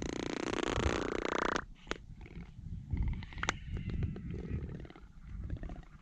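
Wandering albatrosses in courtship display: one loud rasping, rapidly pulsed call lasting about a second and a half, then a few sharp single clacks of bill snapping, over a low rumble.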